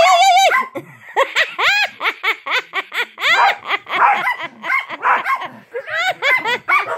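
Chihuahua barking in a run of quick high yips as it bites at a person's toes, mixed with a person laughing.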